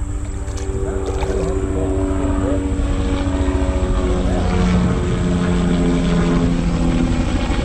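A loud, steady engine drone with a low rumble and several pitched tones, growing louder over the first few seconds.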